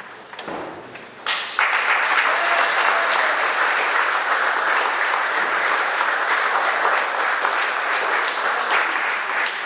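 Audience applauding, breaking out about a second in and then continuing at a steady level.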